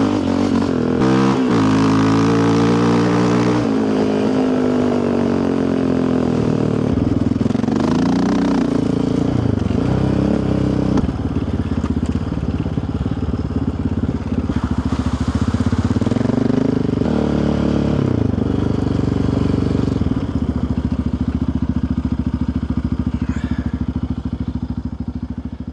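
Yamaha Raptor 700R sport quad's single-cylinder engine running under varying throttle on a trail ride, its pitch rising and falling repeatedly, then holding a steadier note for the last few seconds before the sound cuts off.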